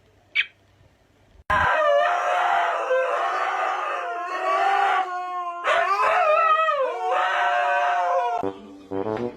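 A dog howling in long, wavering drawn-out notes that start abruptly about a second and a half in and last about seven seconds. A brief high squeak comes just before.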